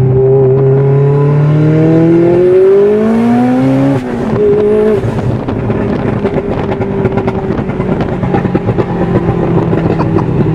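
Built Mitsubishi Lancer Evolution X's turbocharged 2.0-litre four-cylinder accelerating hard, heard from inside the cabin: the engine note climbs for about four seconds, drops at a gear change, then pulls steadily again in the next gear with a rougher, rattling edge.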